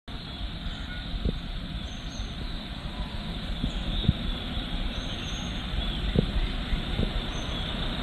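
Steady low rumble of distant road traffic, with faint, short, high bird chirps about three times and a few soft low thumps.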